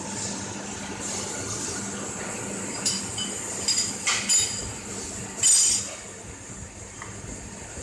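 Sharp metallic clinks of small metal parts being handled at a commutator moulding press, several in a cluster about three to four and a half seconds in, over a steady machine hum. A short, louder hiss follows about five and a half seconds in.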